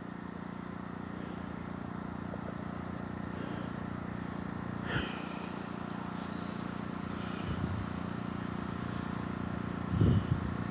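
Steady hum of an idling engine, with a few faint brief sounds and a short louder sound near the end.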